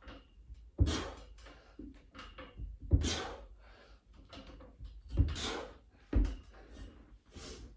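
Pull-ups on a freestanding pull-up tower: a hard, breathy exhale with each rep, each with a low thud or knock from the tower, about every two seconds.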